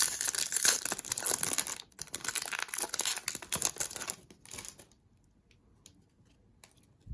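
Foil wrapper of a Bowman Chrome trading-card pack crinkling and tearing as it is ripped open, with a short pause about two seconds in. It stops about five seconds in, leaving a few faint ticks and one low thump at the end.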